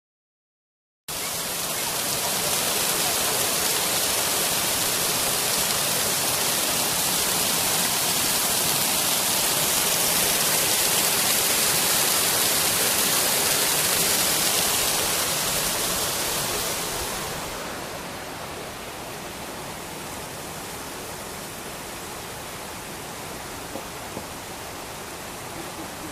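Steady rush of running water, like a small waterfall or stream, cutting in suddenly about a second in. About two-thirds of the way through it becomes quieter and duller.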